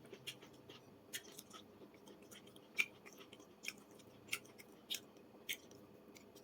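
A person chewing and biting into fried vegetables close to the microphone: irregular sharp crunches and mouth sounds, a few a second, the loudest about three seconds in.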